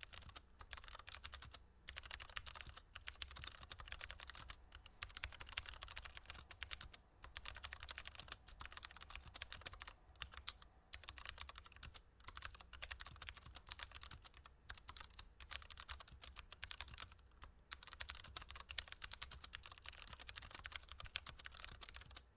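Rapid typing on a mechanical keyboard, dense clicky keystrokes with a bright, treble-heavy tone, in runs of a second or two broken by short pauses.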